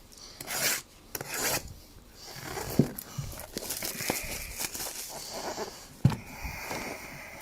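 Hands rubbing and rustling trading-card boxes and packs, with a couple of light knocks as they are set down.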